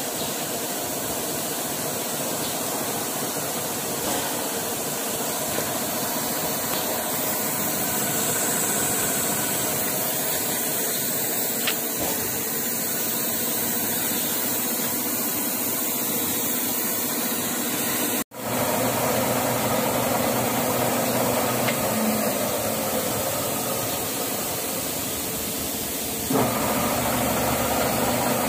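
Metal lathe running steadily, turning a steel shaft held in a steady rest: a continuous machine hum and whirr. It cuts out for a split second about two-thirds of the way through, then carries on.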